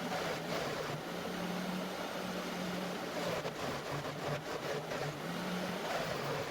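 Vacuum cleaner motor driving a home-made pail-can cyclone dust collector, running steadily with a low hum, and a few brief clicks partway through.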